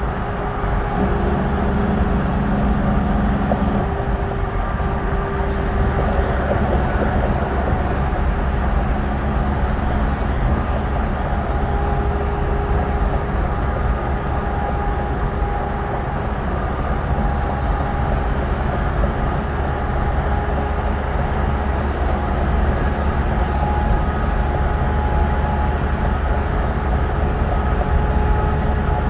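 Highway traffic at speed: a steady, even rush of tyre and wind noise with a droning hum, from a semi-truck running in the next lane and the vehicle it is filmed from.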